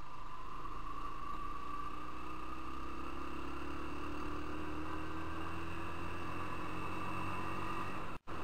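Motorcycle engine running while riding, its pitch climbing slowly as the bike gathers speed. The sound cuts out for an instant near the end.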